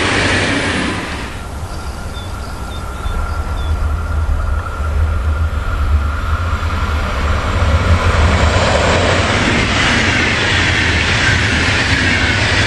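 An Intercity push-pull train running past at speed, led by its control car and pushed by an electric locomotive: a rushing of wheels on rail that builds from a few seconds in and is loudest near the end. In the first second the tail of a red regional train is heard passing.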